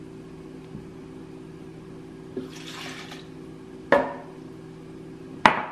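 Oat milk poured, a brief splash of liquid about halfway through, then two sharp knocks of things set down on a countertop, the second louder, over a steady low hum.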